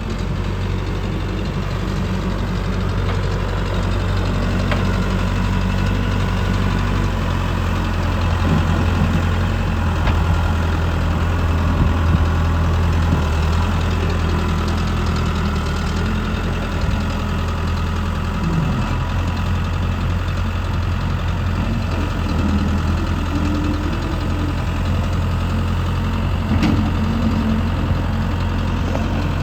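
Case 580M backhoe loader's diesel engine idling steadily, with slight rises and falls in level.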